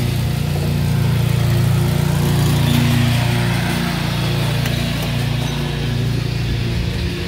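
A machine running steadily with a low, even, engine-like hum.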